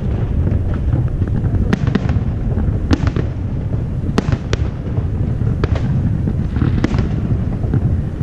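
Aerial firework shells bursting over open water, with sharp cracking reports about every second over a continuous low rumble of booms.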